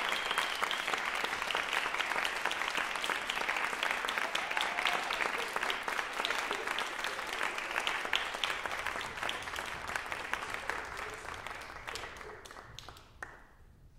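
Theatre audience applauding, a dense clapping that fades away over the last few seconds, with a few last scattered claps near the end.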